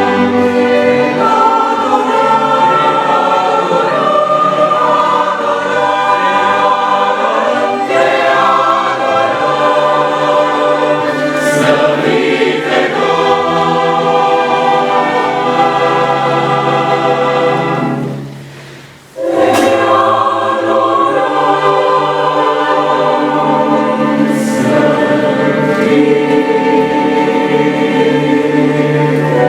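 Choir singing a sacred song with instrumental accompaniment, breaking off briefly for about a second just before the middle and then resuming.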